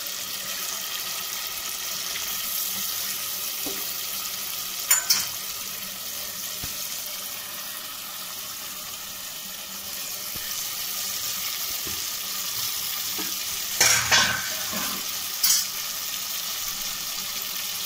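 Tomato masala sizzling steadily in sesame oil in a clay pot, with a few brief knocks about five and fourteen seconds in as pieces of fish are laid in.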